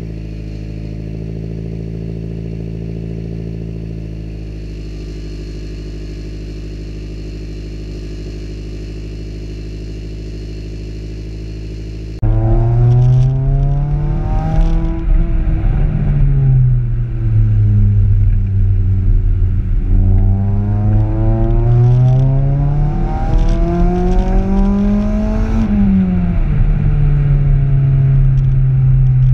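Honda CRX's D16A9 1.6-litre four-cylinder engine idling steadily through a large-bore aftermarket exhaust. About twelve seconds in it turns louder, now heard from inside the cabin while driving: the engine note rises and falls with throttle and gear changes, then holds steady near the end.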